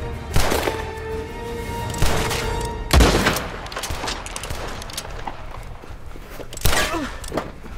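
A burst of handgun shots: several sharp reports spread out a second or more apart, the loudest about three seconds in. Background music with a held note runs under them.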